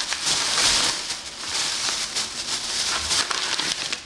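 Thin plastic bags rustling and crinkling as hands dig through them to pull out packets of powdered kissel, a steady crackly rustle.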